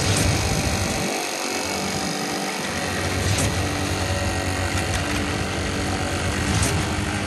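A machine engine running steadily at constant speed, a continuous hum with a few faint ticks.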